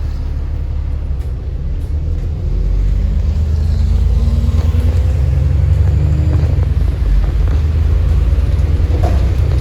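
Alexander Dennis Enviro400 MMC bus's diesel engine pulling under load through its Voith automatic gearbox, its note rising and growing louder about two and a half seconds in, with a faint turbo whine above the deep rumble.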